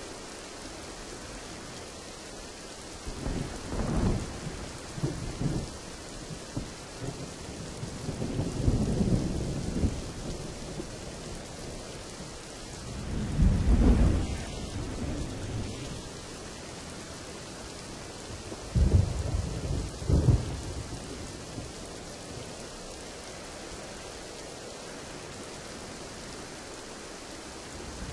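Steady rain with thunder rolling over it: four low rumbles build and fade, about three, eight, thirteen and nineteen seconds in, the one near the middle the loudest.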